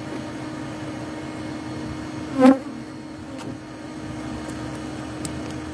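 Honeybees buzzing around an opened hive, with one bee passing close to the microphone in a brief loud buzz about two and a half seconds in, over a steady low hum.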